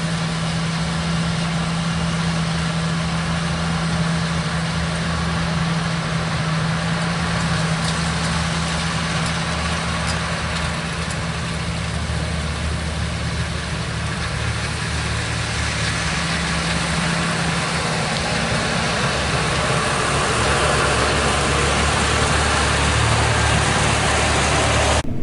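John Deere T670i combine harvester running under load while cutting spring barley: a steady engine and machinery drone with a constant low hum, growing a little louder and brighter in the last few seconds.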